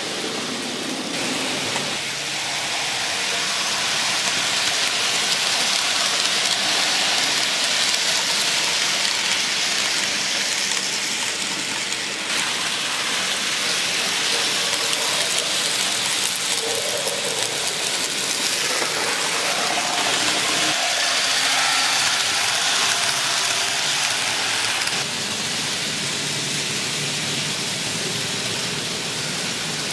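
Model trains running on the layout's track: a steady whirring, rolling noise of small motors and wheels on the rails. It is louder for most of the middle as trains pass close, and drops back near the end.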